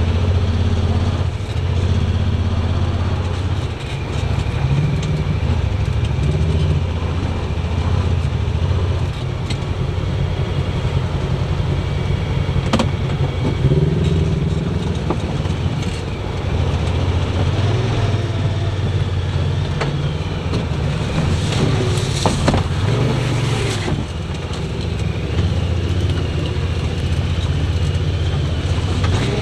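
Off-road vehicle's engine running at crawling speed, heard from inside the cab, its low drone rising and falling as it works over a muddy trail. About three-quarters of the way through comes a cluster of sharp scrapes and cracks of brush and branches raking the body.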